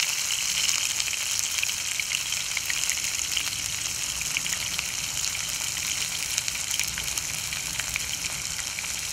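Cubed rainbow trout frying in hot cooking oil in a pan: a steady sizzle with scattered crackles.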